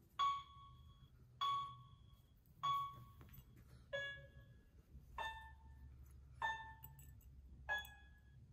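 Soft background music of single chime-like mallet notes, one about every second and a quarter, each ringing briefly before the next, in a slow, simple melody.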